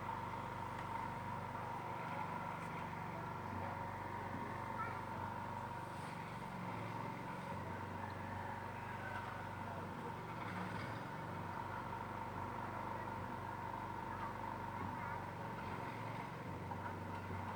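Steady mechanical drone with a constant low hum and a high whine, like an engine running, with faint voices in the background.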